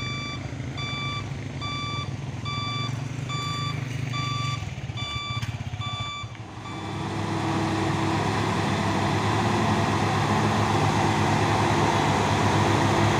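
Truck reversing alarm beeping steadily, about two beeps a second, over a diesel engine idling. About six seconds in the beeps stop and heavy diesel truck engines take over, running steadily under load as the trucks climb a steep hill.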